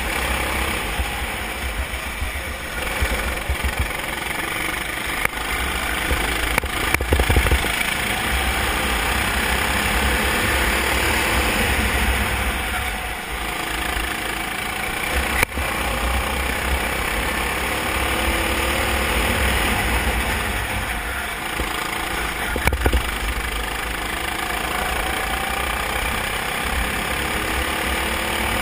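Onboard sound of a racing kart's engine running at racing speed under a steady rush of noise, the revs rising and falling through the corners. A few sharp knocks come along the way.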